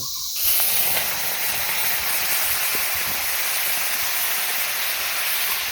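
Chopped tomatoes hitting hot oil and fried spice paste in an iron pan: a sudden burst of sizzling about half a second in, then a steady hiss of frying.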